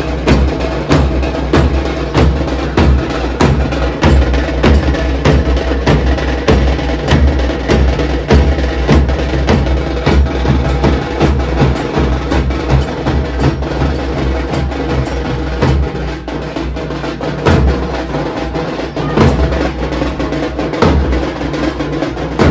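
Drum-heavy percussion music, with many quick, loud drum strikes over a steady low drone.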